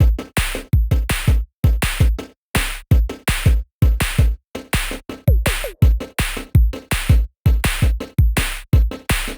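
Electronic background music with a heavy drum-machine beat and deep bass, in short chopped bursts.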